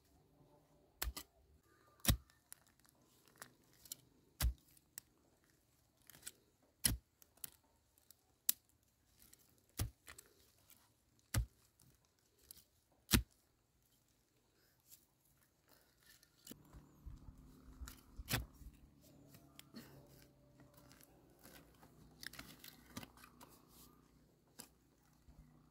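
A digging tool chopping into dry, root-filled soil: about a dozen sharp strikes, one every second or two, through the first half. After that come softer scraping and rustling as the earth and roots are pulled away by hand, with a faint low hum underneath.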